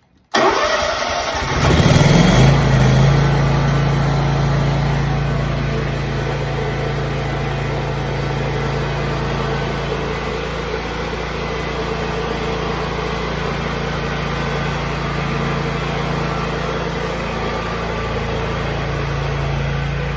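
Scag V-Ride II stand-on mower engine started: the starter cranks for about a second and a half, the engine catches about two seconds in, is loudest just as it picks up, then settles into steady running. It starts without trouble this time, despite its intermittent no-start fault.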